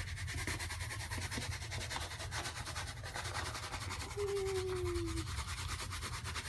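Coarse kosher salt pouring from a cardboard box onto raw rabbit hides: a steady, granular hiss. A short, low falling tone sounds briefly about four seconds in.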